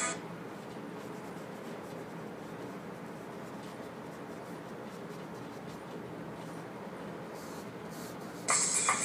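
Paintbrush working acrylic paint onto a stretched canvas, a steady, even brushing sound. Guitar music comes in near the end.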